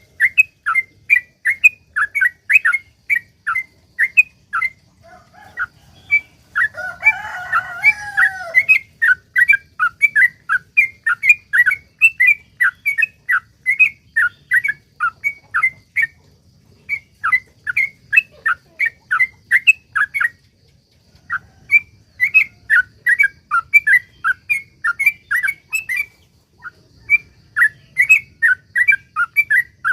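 Yellow-vented bulbul (trucuk) singing its long, rapid chattering song, a quick run of short notes at about four to five a second with a few brief pauses. About seven seconds in, a harsher, lower call with a falling glide overlaps the chatter for roughly two seconds.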